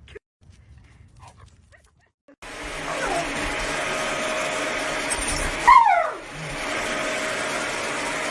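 A dog gives a falling whine, faint about three seconds in and loud just before six seconds, over a steady rushing noise like a hair dryer running. The first couple of seconds are faint.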